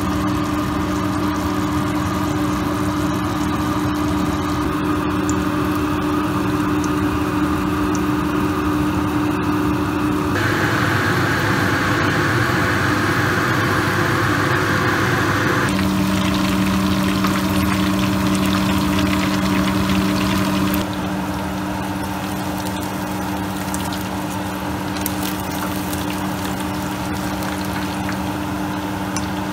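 Food sizzling and bubbling in frying pans on a stove: chicken pieces frying in hot oil and chicken adobo simmering in its sauce. A steady low hum runs underneath, and the sound changes abruptly three times.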